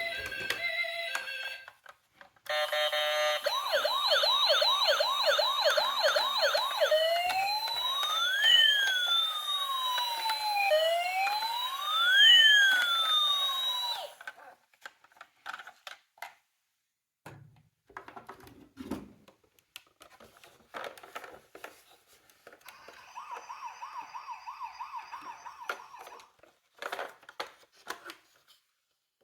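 Electronic toy sirens from miniature emergency vehicles, played through tiny speakers. A fast warbling yelp shifts into two overlapping slow wails, rising and falling, that cut off suddenly about halfway through. Later come scattered small plastic clicks and knocks, with a shorter, fainter warble.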